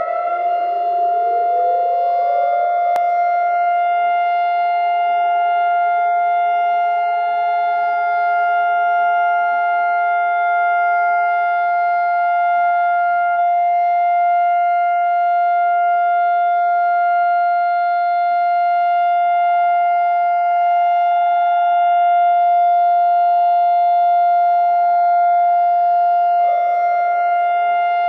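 Civil defense siren holding one steady tone. This is the Yom HaZikaron memorial siren, which calls for a minute of standing silence for Israel's fallen. In the first few seconds a second siren winds up in pitch and joins the first.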